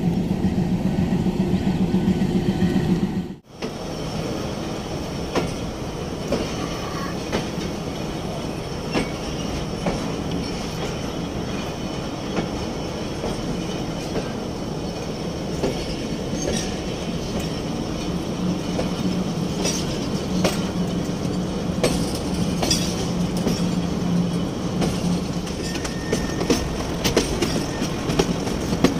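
Passenger train running on its rails, heard from an open coach door: a steady rumble of wheels with scattered clicks at the rail joints and a few faint wheel squeals. The first three seconds hold a steady low hum that breaks off abruptly.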